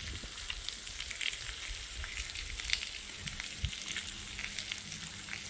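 Pork sizzling on a tabletop grill, a steady hiss dotted with small crackles, with one light knock a little past the middle.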